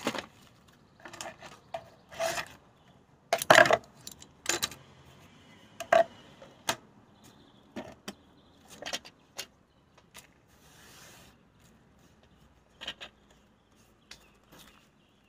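Plant pots and plants being handled and set down: scattered knocks and clatter at irregular intervals, the loudest a cluster about three and a half seconds in, with a brief soft rustle around eleven seconds in.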